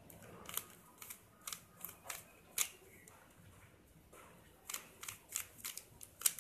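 Stickerless 3x3 Rubik's cube being turned quickly by hand: sharp plastic clicks and clacks as the layers snap round. They come in two quick runs with a pause of about two seconds between them.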